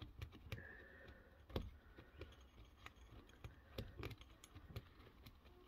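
Faint, irregular metallic clicks and ticks of a small spanner being fitted to and worked on a nut of a refrigerator compressor's electric motor.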